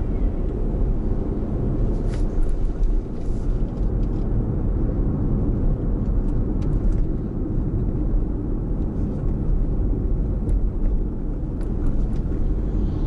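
Car driving along a city street, heard from inside the cabin: a steady low rumble of engine and tyre noise, with a few faint ticks.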